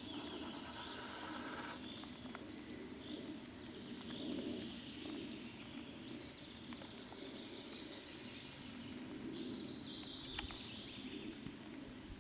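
Faint woodland ambience with small birds singing in repeated high phrases over a low background hiss, and a couple of sharp clicks near the end.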